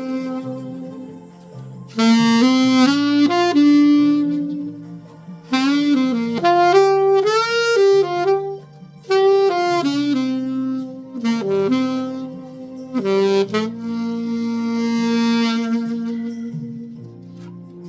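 Selmer Mark VI alto saxophone with a Theo Wanne Lakshmi mouthpiece, played dry without added reverb, playing a slow melody in short phrases with brief breaths between them. It ends on one long held note that fades, over a soft accompaniment underneath.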